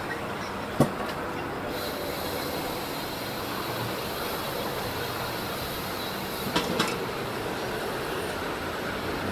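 Steady rushing road and wind noise, with a sharp knock about a second in and two more close together near seven seconds.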